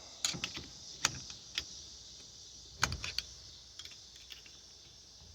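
Sharp metal clicks and knocks from a screwdriver working a retaining clip down around the steering column shaft, a few irregular strikes, the loudest about three seconds in.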